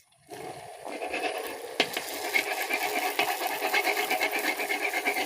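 Wheat-flour golgappe (puris) deep-frying in hot oil: a dense crackling sizzle that starts just after the opening moment and gets louder about a second in, with a single sharp click near two seconds.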